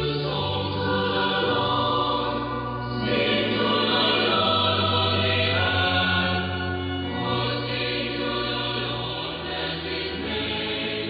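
A choir singing a slow liturgical chant in long, held notes, received over longwave AM radio on an Icom IC-R8600, so the sound is narrow and muffled, with nothing above the upper midrange.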